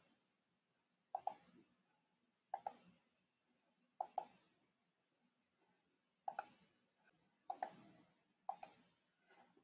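Computer mouse button clicks, six in all, spaced a second or two apart. Each click is a quick double tick, the press and the release.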